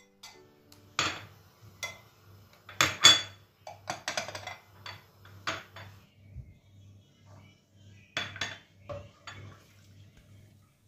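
Small glass bowls clinking and knocking as they are set down and moved about on a granite countertop while boiled chickpeas are put into them: a dozen or so sharp, irregular clinks, the loudest about three seconds in.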